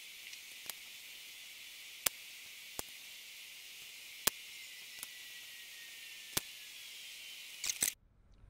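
Steady faint hiss with a handful of sharp, irregular ticks, cutting off abruptly near the end.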